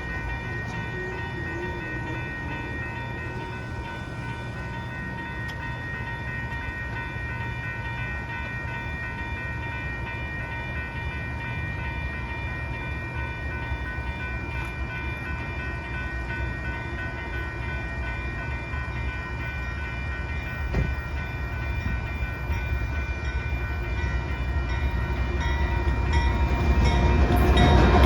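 Union Pacific coal train approaching: a low locomotive rumble builds, growing clearly louder over the last few seconds, under several steady high tones that hold throughout.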